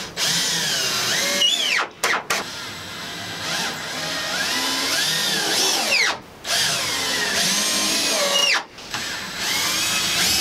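Cordless drill driving screws through a 2x4 up into wooden rafters, its motor whine rising and falling in pitch as the trigger is worked, in four runs with short pauses between them.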